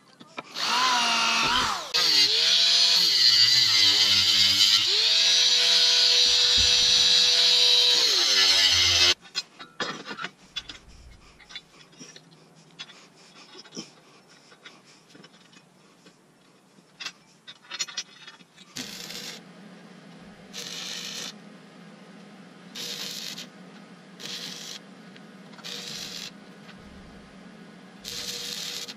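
Cordless drill boring through a steel flat bar, its motor whine rising and falling in speed for about nine seconds, then stopping. After some light handling clicks, a welder tacks a steel frame: six short crackling bursts over a steady electrical hum in the second half.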